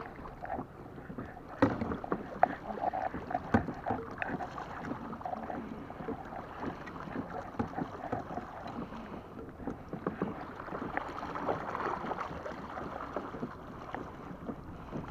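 Water splashing and sloshing along a kayak's hull as it is swung through quick, sharp turns by its rudder tiller, with a few sharp knocks about one and a half and three and a half seconds in.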